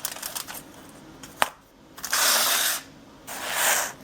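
Takeout food packaging being handled: a few small clicks, one sharp click, then two loud bursts of rustling and crinkling in the second half.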